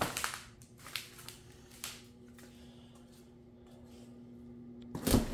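Handling noise: a few light clicks and knocks from hands on the bed's panels, and a louder bump near the end, over a faint steady hum.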